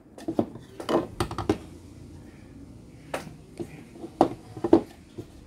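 Oxone OX-875N slow juicer's plastic juice bowl and strainer basket clicking and knocking as they are handled and turned to line up their arrow marks: a string of separate taps, several close together in the first second and a half, then a few more spread out later.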